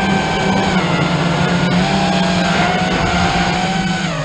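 FPV quadcopter's electric motors and propellers whining at steady throttle, the pitch sagging briefly about a second in and dropping again near the end as the throttle eases.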